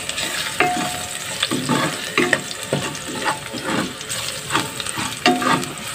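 Chopped garlic sizzling in hot oil in a stainless steel pot, with a spatula scraping and clicking against the pan as it is stirred.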